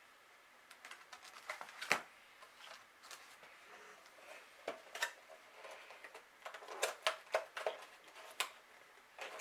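Small plastic clicks and rustling as HeroClix miniatures and booster packaging are handled on a tabletop, a scatter of sharp taps with a busier run of them in the last few seconds.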